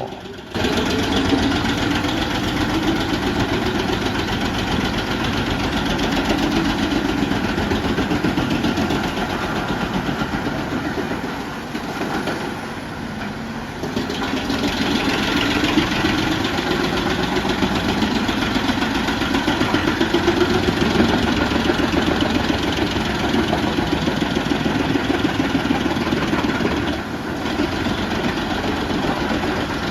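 Truck-mounted drum wood chipper running under load, a loud continuous machine drone whose low hum swells and eases as wood is fed through, dipping briefly about twelve seconds in.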